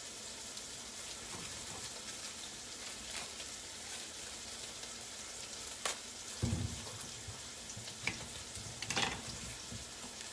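Diced onion sizzling steadily in olive oil in a stainless steel sauté pan, gently browning. A few knocks and clatters come about two-thirds of the way through and again near the end.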